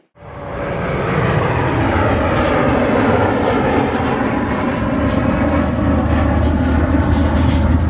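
McDonnell Douglas MD-80's two rear-mounted Pratt & Whitney JT8D turbofans at takeoff power during the climb-out: a loud, steady jet roar that swells up within the first second and holds, with a low hum under it in the second half.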